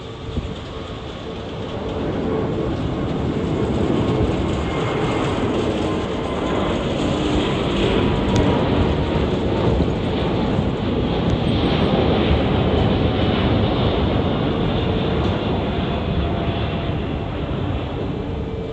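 A British Airways Boeing 787 Dreamliner's twin Rolls-Royce Trent 1000 engines at take-off thrust as the jet climbs away: a dense, rushing jet noise that swells over the first few seconds, stays loud, and eases slightly near the end.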